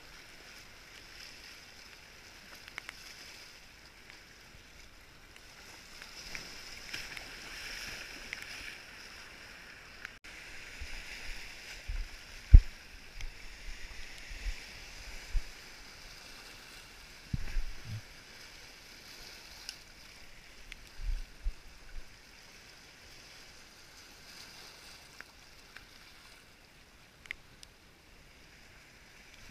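Sea washing over rocks and pebbles at the shoreline, a steady hiss throughout, with a few short low thumps in the middle stretch, one sharp thump the loudest.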